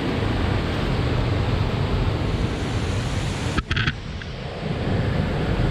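Steady rushing noise of river water with wind buffeting the microphone, briefly cutting out about three and a half seconds in.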